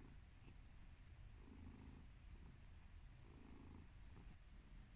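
Ginger-and-white domestic cat purring, faint and steady, swelling in waves about every two seconds.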